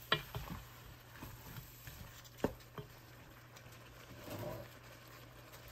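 Wooden spoon stirring chunks of lamb, tomato and onion in a steel pan: a few scattered scrapes and knocks against the pan, the sharpest about halfway through, over a faint sizzle of frying.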